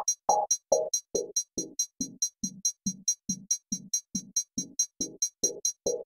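Electronic background music: a synthesizer note pulsing about two and a half times a second, its tone closing down to a dull low pulse around the middle and opening bright again near the end, over fast steady hi-hat ticks.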